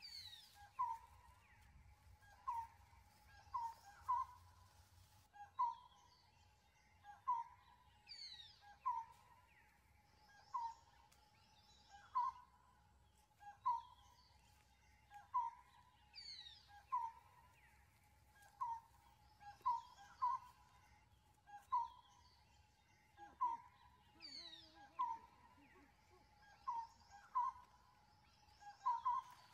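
Bird calls repeating at an even pace: short notes, often in pairs, about every second and a half, with a high falling whistle about every four seconds, over a faint steady tone.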